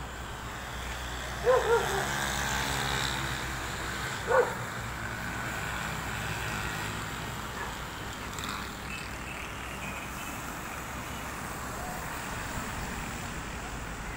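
Steady road traffic on a wet highway, with a dog barking twice in quick succession about a second and a half in and once more about four seconds in.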